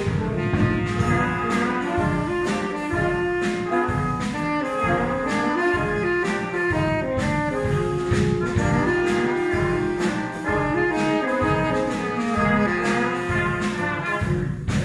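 Live wind band with saxophones and brass playing a tune over a steady drum beat of about two strokes a second.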